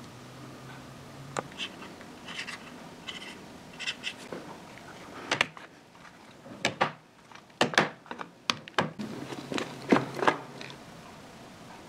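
Harley Sportster hydraulic roller lifters (cam followers) being set down in a clear plastic box: light, irregular clicks and knocks of steel on plastic and on each other, with rubber gloves rubbing. The clicks get louder and come thicker from about halfway through.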